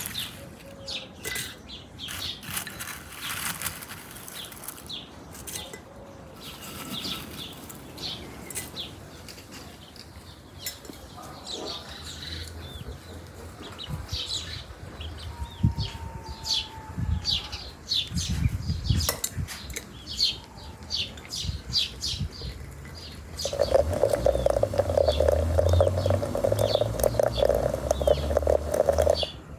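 Small birds chirping, with light knocks of things being handled. About 23 seconds in, water is poured steadily into a glass teapot for about six seconds, the loudest sound, stopping just before the end.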